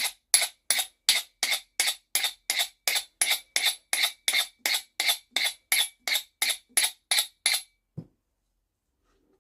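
A magnet stroked quickly and repeatedly along the steel head of a tack hammer, about three short scraping strokes a second, to magnetize the hammer. The strokes stop near the end and are followed by a single low thump.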